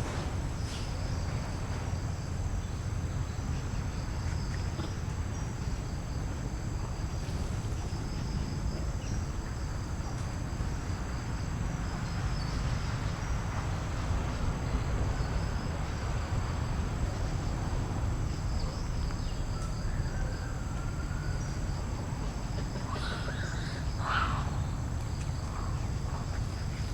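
Steady high-pitched drone of insects (crickets or cicadas) over a low rumble of wind or outdoor noise, with a brief higher call near the end.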